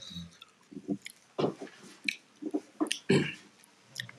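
Close-up mouth sounds of someone chewing: a string of wet smacks and clicks, the strongest about one and a half and three seconds in.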